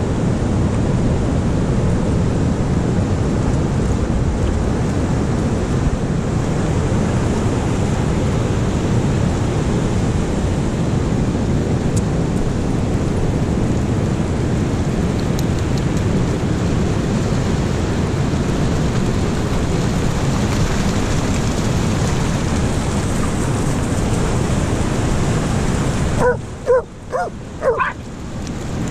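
Steady rushing noise of wind and breaking surf. Near the end it falls away and dogs bark and yip several times in quick succession.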